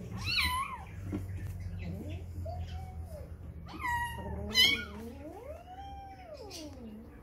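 Cats meowing: a few short, high meows, the loudest a little past halfway, then one long drawn-out meow that rises and falls over about two seconds near the end.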